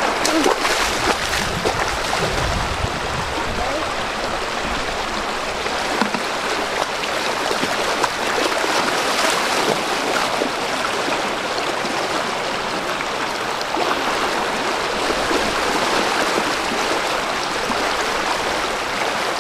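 Fast, shallow river water rushing and churning steadily over a breached bank and around a person's legs.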